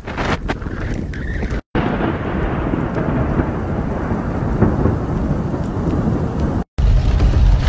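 Thunderstorm: a steady rush of heavy rain with low rumbling, broken by two abrupt cuts to silence, one about a second and a half in and one near the end. After the second cut a heavier low rumble comes in.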